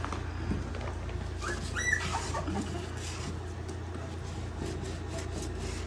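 Young boxer puppies giving a few short, high squeaks and whimpers about a second and a half in, over a steady low hum.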